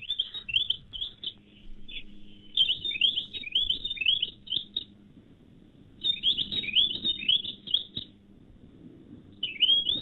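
A recorded bird call of a small songbird played back for a guess-the-bird quiz. It comes in several phrases of rapid, high, downward-slurred notes, a few seconds apart.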